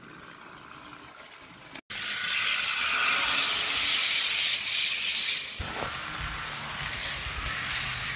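HO-scale model freight train rolling along outdoor track, its double-stack well cars' wheels running on the rails with a steady mechanical rattle. It gets suddenly louder about two seconds in as the cars pass close by, and eases off again a little past the halfway point.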